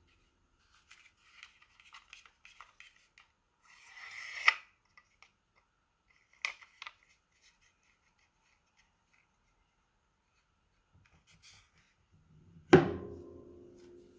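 Handling of a Fiskars Xtract pruning saw: light clicks and rustling, then a short scrape ending in a sharp click about four and a half seconds in. Two more clicks follow a couple of seconds later, and near the end comes a loud knock with a brief ringing.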